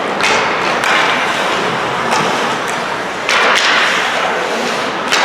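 Ice hockey play on the rink: skates scraping and hissing on the ice, with several sharp clacks and thuds of sticks, puck and boards.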